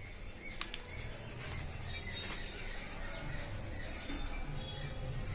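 Birds chirping: a string of short, high, falling chirps, thickest about two seconds in.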